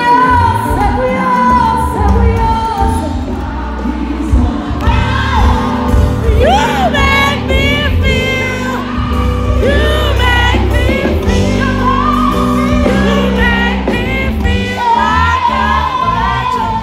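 Loud live concert music over a PA system with heavy bass, a sung melody carried by the crowd, and the women next to the phone singing along.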